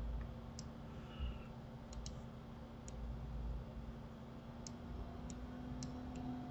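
Computer mouse buttons clicking: about eight short, sharp clicks, unevenly spaced, with a faint steady hum underneath.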